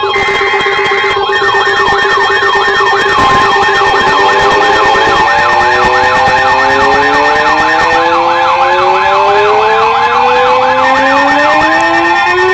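Emergency alert tones: a steady two-tone attention signal layered with a fast warbling siren, about three wobbles a second, and several siren tones that climb slowly in pitch through the second half.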